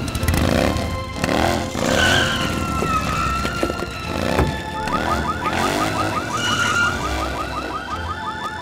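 Motorcycle engine revving up and down several times as it pulls away. About halfway through, a car alarm starts sounding with a rapid, repeating chirp.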